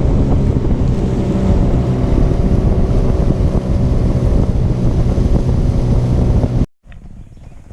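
Boat's outboard motor running steadily underway, with heavy wind buffeting the microphone. It cuts off abruptly near the end.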